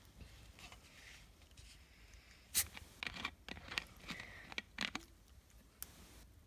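Plastic water bottle handled close up: crinkling and crackling of the thin plastic and the screw cap being twisted off, a quick series of sharp clicks bunched between about two and a half and five seconds in, the loudest near the start of that run.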